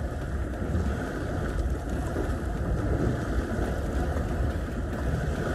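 Steady wind buffeting the microphone, a continuous low rumble with no distinct events.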